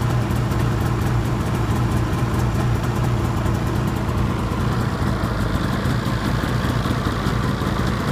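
2012 Arctic Cat XF 800 snowmobile's two-stroke twin engine idling steadily.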